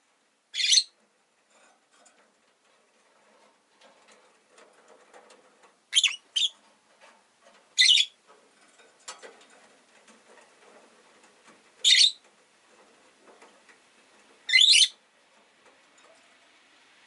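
Rosy-faced lovebirds giving short, shrill, high-pitched calls, six of them spaced several seconds apart, two in quick succession about six seconds in, with faint rustling and clicking between calls.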